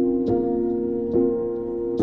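Soft background music of sustained keyboard chords, with a new chord struck twice.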